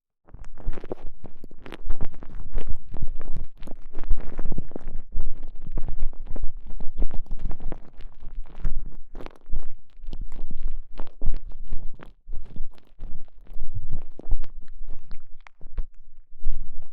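Close-up handling of a TENGA Egg's stretchy elastomer sleeve with a microphone inside it: a dense, irregular run of crackling and rubbing noises that starts after a brief silence.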